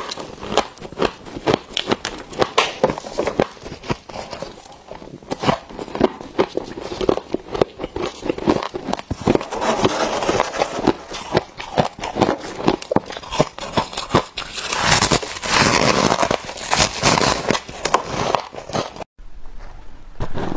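Close-up crunching and crackling of freezer frost being bitten and chewed, dense rapid crackles like packed snow breaking. In the middle, gloved hands dig and scrape loose frost from a chest freezer, a rougher grainy scraping; shortly before the end the sound cuts out abruptly and softer crackling of shaved ice resumes.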